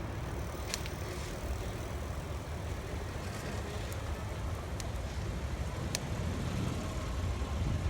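Steady low rumble of wind buffeting the microphone while cycling, with a few sharp clicks along the way.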